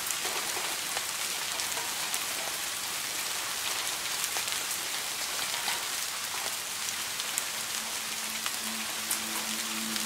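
Steady rain falling, an even hiss dotted with the sharp ticks of single drops striking a surface. Faint steady low tones come in near the end.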